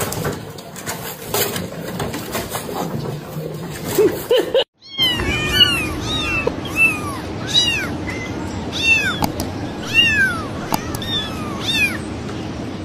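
Kittens mewing over and over in high, thin, arching calls, several overlapping, starting about five seconds in after a brief break. Before that there is only indistinct background noise.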